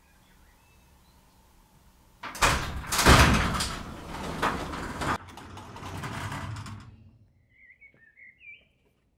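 Garage door being opened: about five seconds of loud scraping, sliding noise with a few knocks in it. A few bird chirps follow near the end.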